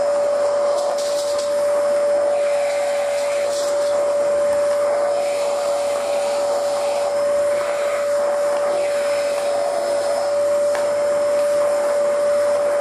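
Vacuum cleaner running steadily: a constant motor whine over a rushing airflow hiss, with small shifts in the hiss as the nozzle is moved.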